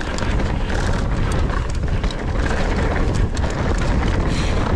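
Wind rushing over the action-camera microphone of a descending mountain bike, over the tyres rolling on a loose, stony dirt trail, with many quick clicks and rattles from stones and the bike.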